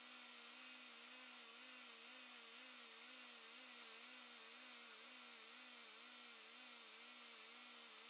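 Near silence: a faint hum that wavers in pitch a couple of times a second, over a light hiss.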